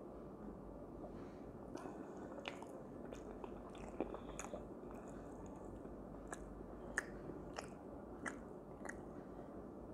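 Close-up mouth sounds of a man drinking and eating: sips from a glass, chewing and swallowing, with short wet clicks and smacks about once a second.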